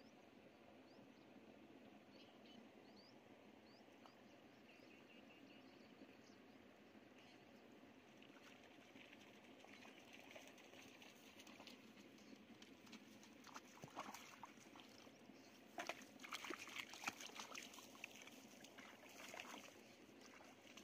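Shallow muddy paddy water splashing and sloshing as a person gropes for fish by hand and wades. It is faint at first and grows louder and more frequent about two-thirds of the way in. A few faint high chirps come early on.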